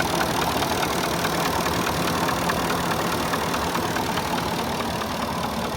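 Porsche Cayenne 4.5 V8 engine running warm at a steady idle, with a regular light knocking over the engine note. The owner takes the knock for piston slap.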